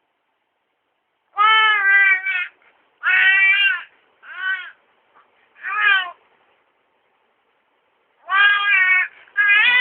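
A cat meowing repeatedly: about six drawn-out meows with rising-then-falling pitch, separated by short pauses and a longer gap in the middle.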